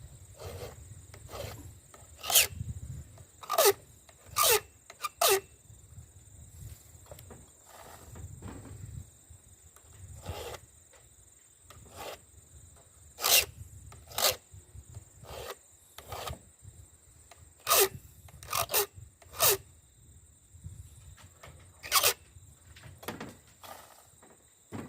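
A file scraping the cutters of a full 3/8-inch chainsaw chain on a Sachs-Dolmar 120si being sharpened. Short, sharp strokes come about once a second, with a few pauses between runs.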